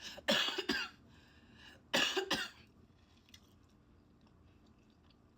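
A woman coughing in two short fits about a second and a half apart, the first made of several quick coughs.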